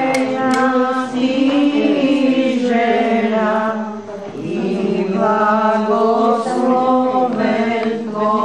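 Several voices singing an Orthodox chant in long held notes over a steady low drone, with a short pause for breath about halfway.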